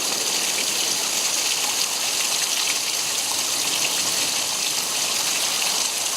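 Rain falling steadily during a thunderstorm: an even, unbroken hiss with faint scattered ticks of drops.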